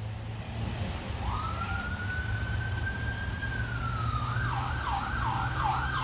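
Emergency-vehicle siren: a long wail that rises, holds and dips, then switches into a fast yelp of quick repeated up-and-down sweeps, over a steady low hum.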